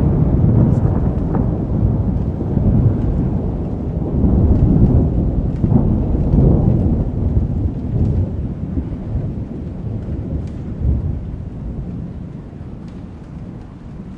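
Thunder rumbling and rolling through a thunderstorm, with rain falling. The deep rumble swells several times, then dies away steadily toward the end.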